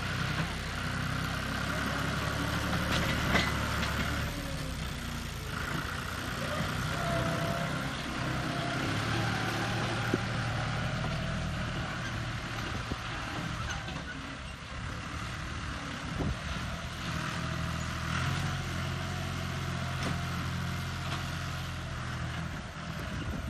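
John Deere tractor's diesel engine running under load as it drags a disc harrow over rough ground, its pitch shifting now and then, with a few sharp knocks.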